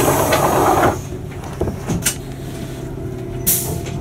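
Bus diesel engine idling steadily at a stop, with loud hisses of compressed air from its pneumatic system: a long hiss during the first second and a short sharp hiss about three and a half seconds in, as the door and brakes work before the bus moves off.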